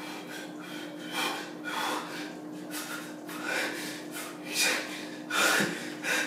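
A man breathing hard and unevenly through pursed lips, a quick series of loud, rough exhalations and gasps: the cold-shock breathing of someone sitting in an ice-filled bath.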